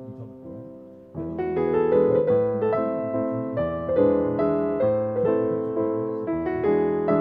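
Background piano music, a melody of separate notes: soft and fading for the first second, then coming in louder.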